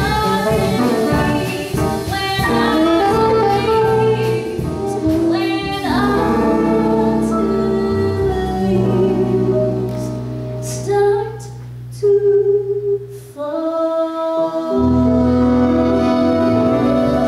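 Live jazz ballad: a singer with a microphone over a band of piano, bass guitar and drums. About three-quarters of the way through the accompaniment briefly thins out after a few sharp accents, then the full band comes back in.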